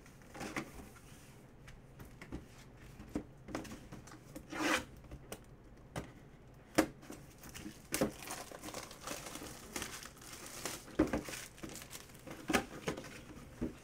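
Cardboard mini-helmet box and its packaging being handled and opened by hand: crinkling and tearing, with scattered light knocks and clicks.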